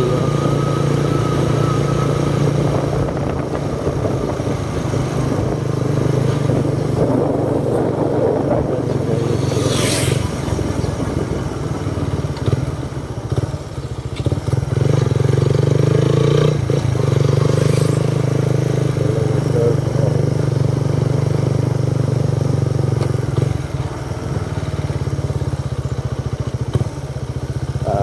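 Motorcycle engine running steadily on the move, easing off briefly about halfway through. A single sharp click sounds about ten seconds in.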